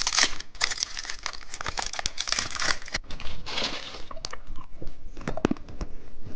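A chocolate's candy wrapper crinkling and tearing as it is opened. The crackle is dense for about four seconds, then a few sharp clicks follow near the end.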